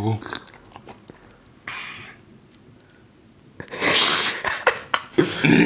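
A person sipping from a cup, then a loud breathy exhale about four seconds in, followed by a few small clicks and a short vocal sound near the end.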